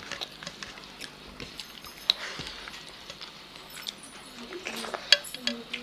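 Two people eating rice and chicken with their hands: scattered small clicks and wet smacks of fingers working rice on plates and of chewing, with a sharper click about two seconds in and another about five seconds in.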